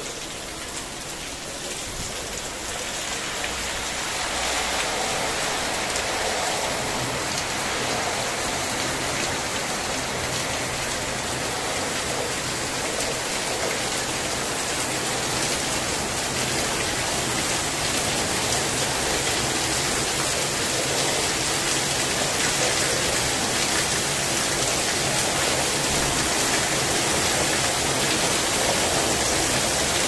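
Heavy rain driven by strong wind. It grows louder over the first few seconds as the downpour comes closer, then holds steady, with water streaming off a roof edge.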